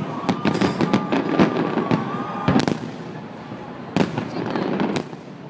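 Fireworks salute: a quick irregular run of sharp bangs and crackles, the strongest about a second and a half, two and a half, and four seconds in. A thin steady whistle runs through the first half and stops about two and a half seconds in.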